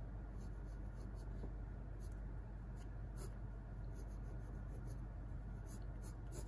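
Graphite pencil scratching on drawing paper in short, irregular strokes, faint, as lines are sketched in.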